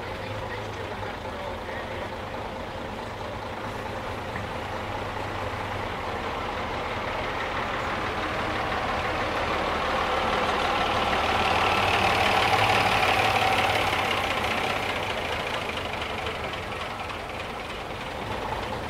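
Bus engine running as the bus draws near and goes by: the sound grows louder to a peak about twelve seconds in, then fades.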